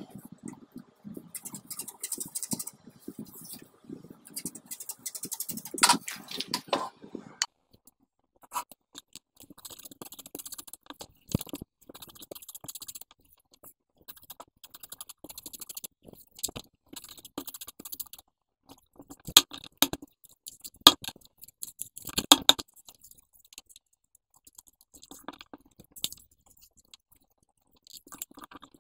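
Sheets of white paper being handled on a table: sliding, rustling and crinkling, with a few sharper crackles and taps in the second half.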